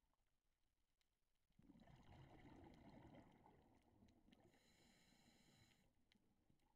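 Faint, muffled rumble of a scuba diver's exhaled bubbles, starting about a second and a half in. Partway through it gains a short buzzing tone, lasting about a second and a half.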